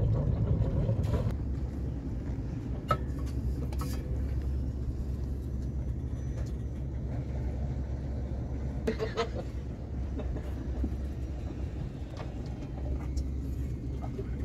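A boat's engine running with a steady low rumble, with a few light knocks over it.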